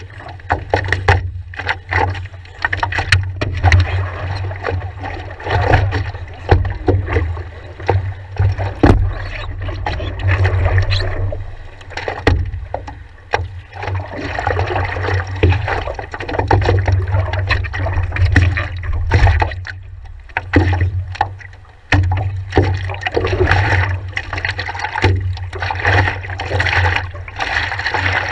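Water slapping and splashing against the nose of a stand-up paddleboard, heard close up through the board-mounted action camera, with paddle strokes and a steady low rumble underneath.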